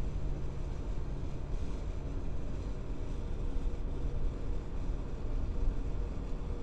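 Subaru car on the move: steady low road-and-running rumble with a faint constant hum over it, a recording of a suspension or running-gear noise.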